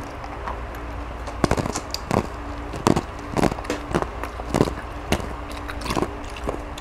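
Eating sounds close to the microphone, boiled chicken being chewed and pulled apart: a string of sharp, irregular crackles and smacks starting about a second and a half in, over a steady low hum.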